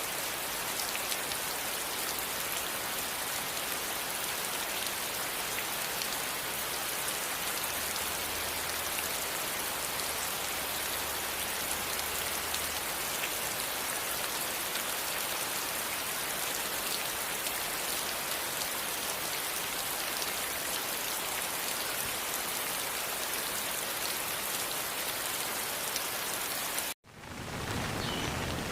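Steady rain falling, an even hiss of many drops. Near the end it cuts out suddenly for a moment and comes back.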